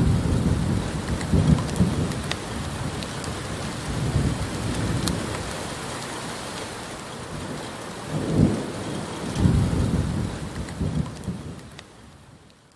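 Steady rain with rolling thunder: low rumbles swell several times, the strongest about eight to ten seconds in, with scattered drop ticks over the rain hiss, and the whole fades out near the end.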